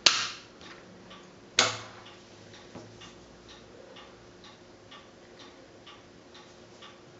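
Two sharp clacks of draughts pieces set down on a wooden board, one at the start and one about a second and a half in, over a clock ticking faintly about twice a second.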